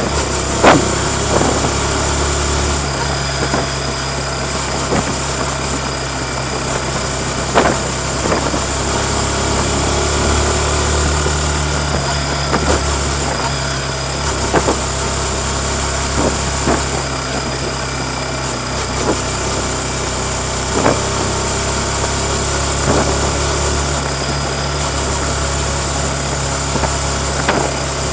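Yamaha MT-15's 155 cc liquid-cooled single-cylinder four-stroke engine running steadily through its stock exhaust while riding, with occasional short sharp knocks.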